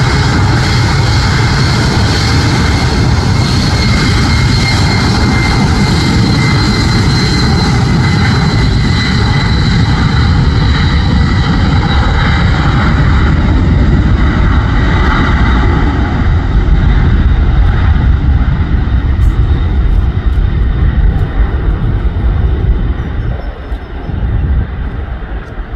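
Boeing 767-300ER freighter's twin jet engines at takeoff thrust during the takeoff roll: a loud, steady rumble with a high whine that slowly falls in pitch as the jet speeds away. The rumble swells about two-thirds of the way through, then fades near the end as the aircraft lifts off in the distance.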